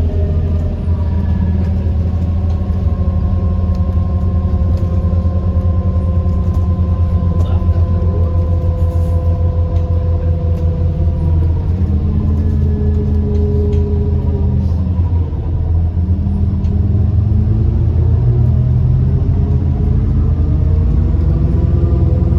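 Alexander Dennis Enviro 400MMC double-decker bus under way: a steady heavy rumble with whining from the axles and turbo, which the uploader puts down to the bus being worn out. The whine sinks in pitch about halfway through as the bus slows and rises again near the end as it picks up speed.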